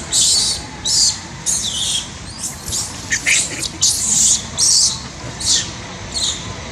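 Baby macaque screaming: about ten short, shrill, high-pitched cries in quick succession, the sign of a distressed infant.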